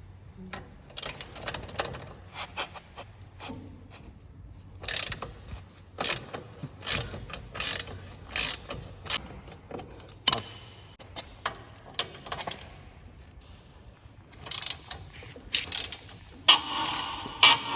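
Ratchet wrench and hand tools working the nut off the steering shock (damper): a series of irregular sharp metal clicks and clinks, busier and more ringing near the end.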